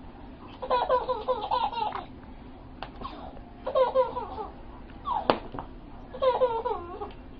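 A baby laughing in three bursts of giggles, with a single sharp tap a little after five seconds in.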